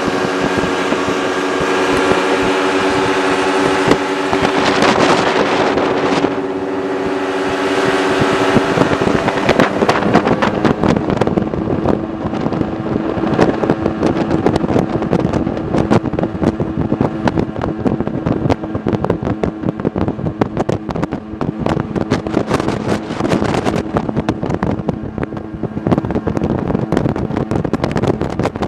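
Sea-Doo Speedster jet boat's engine running steadily under way, heard from aboard. About ten seconds in, rapid buffeting thumps join it.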